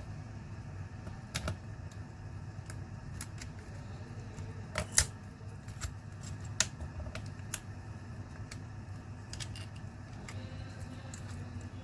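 Scattered small clicks and taps of tools and laptop parts being handled during disassembly, the loudest about five seconds in, over a steady low hum.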